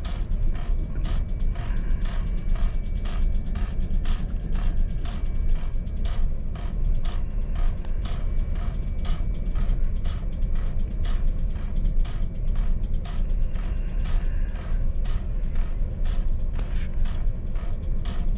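Steady low drone of a ship's engines and machinery, with frequent short clicks over it.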